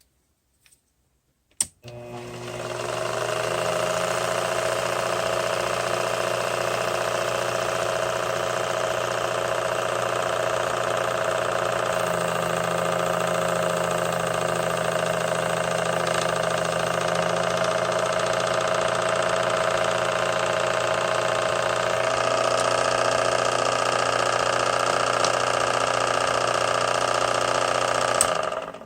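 Sherline mini lathe motor switched on with a click, spinning up over about two seconds, then running steadily with a whine. It cuts off abruptly near the end.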